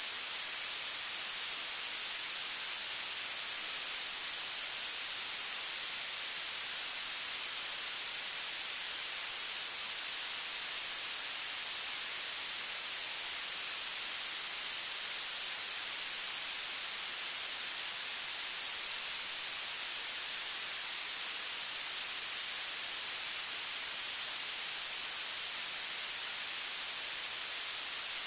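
Steady, unbroken static hiss, brightest in the high range, with nothing else standing out.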